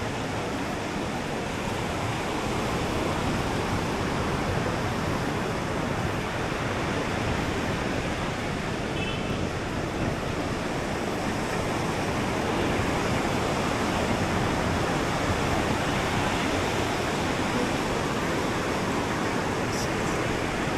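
Ocean surf breaking and washing up a sandy beach: a steady rushing noise that swells gently and grows a little louder about halfway through.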